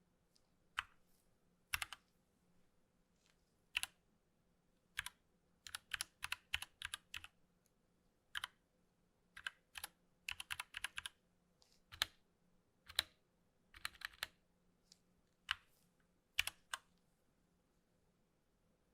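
Keys being pressed on a 60% mechanical keyboard: irregular clacks, sometimes in quick runs of several keys, with short pauses between.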